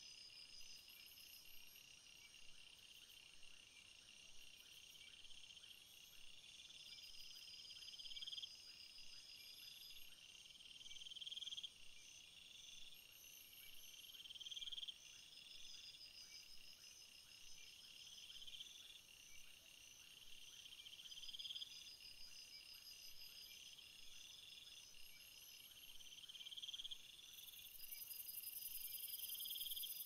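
Faint chorus of insects: a buzzing trill that swells and cuts off every two to three seconds, over steady, higher pulsed chirping. A higher, hiss-like buzz comes in near the end.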